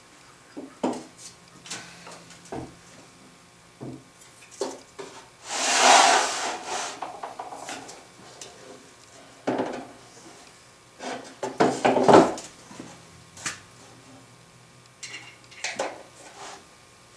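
Handling noise as a motor-mounting setup is taken apart: scattered knocks and clicks of a 3/8-inch 4140 steel plate and tools on a plywood board. The loudest part is a longer scraping rub about six seconds in, followed by a quick cluster of knocks around twelve seconds in.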